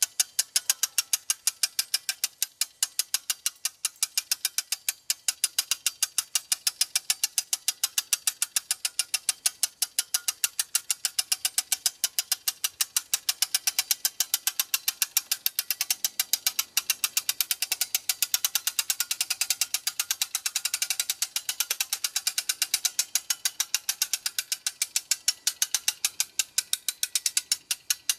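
Hand-crank winch clicking steadily as its ratchet pawl rides over the gear teeth, about four clicks a second, while the winch is cranked under load to hoist a vertical antenna upright by a strap.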